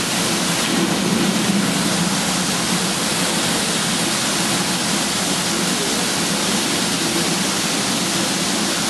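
Steady rush of water from the Mirage volcano's fountain jets spraying and falling back into the lagoon.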